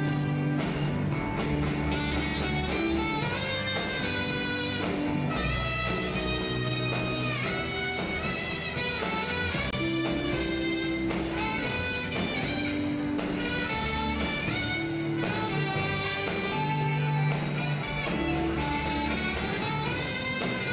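Live band playing an instrumental passage: saxophones and trumpets carry the melody over acoustic guitar and a drum kit keeping a steady beat.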